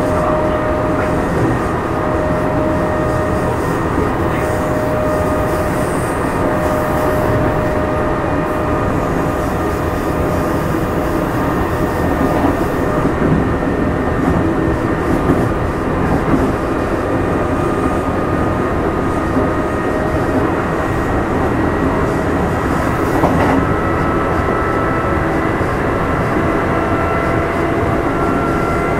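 Kintetsu 2610 series electric train running, heard from inside motor car Mo 2614: a steady rumble of wheels on rails with a whine from the traction motors and gears. The whine edges slightly higher in pitch in the second half.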